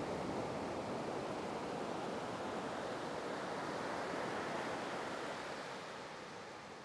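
Ocean surf washing up the beach: a steady rushing noise that eases off near the end.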